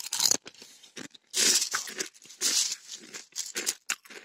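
Dry corn flakes crunching in several irregular bursts, the loudest about a second and a half and two and a half seconds in.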